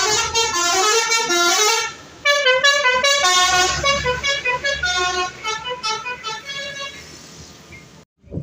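Bus's Basuri multi-tone 'telolet' horn playing a fast melody of stepping notes. One phrase ends about two seconds in, and a second starts right after and fades out; the sound cuts off suddenly near the end.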